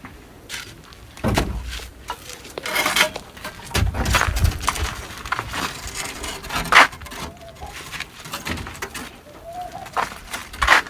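Irregular knocks, scrapes and clatter of hand construction work, with a few short bird calls near the end.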